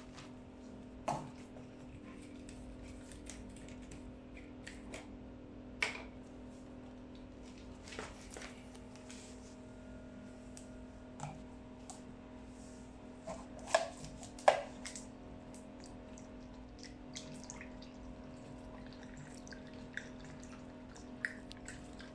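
Purified water poured from a large plastic bottle into a funnel and hose, trickling faintly into the water tank of a picosecond laser machine, with occasional sharp clicks and crackles from handling the plastic bottle. A steady low hum runs beneath.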